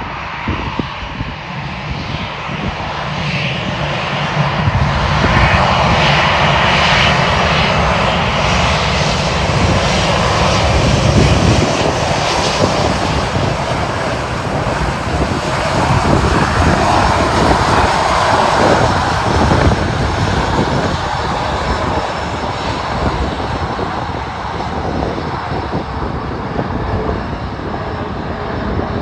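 Airbus A319 airliner's twin jet engines running at taxi power as it rolls past close by: a steady jet noise that swells about five seconds in, stays loud as the aircraft passes, and eases slightly near the end as it turns away.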